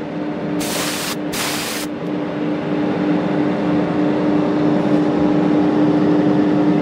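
A small electric motor hums steadily with a clear tone and overtones, growing a little louder after about two seconds. Two short bursts of hissing air come about a second in.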